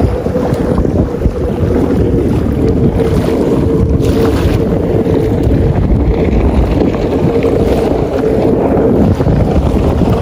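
Wind buffeting the microphone, with the steady drone of a jet ski's engine running across the water beneath it.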